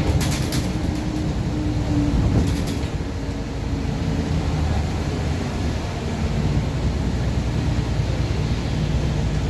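Mercedes-Benz Citaro diesel bus engine running with a blown exhaust, a steady low rumble heard from inside the moving bus, with brief rattles about half a second and two and a half seconds in.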